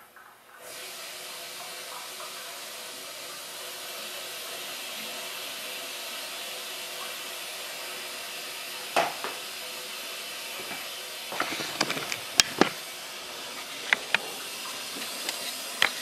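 Water rushing through a partly opened supply valve into a drained electric water heater tank, a steady hiss that starts about half a second in as the tank refills slowly. A few light clicks and knocks come through near the middle and toward the end.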